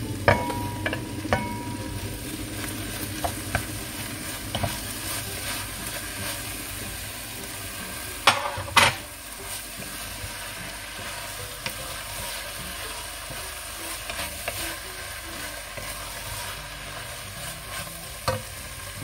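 Stewing beef sizzling as it browns in hot olive oil with soft onions in a pot, with stirring clicks and scrapes throughout and two louder knocks close together about eight seconds in.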